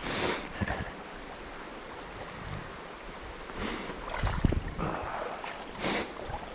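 Shallow creek water running steadily over rocks, with three short, louder rushes of noise: one at the start, one about four seconds in, one about six seconds in.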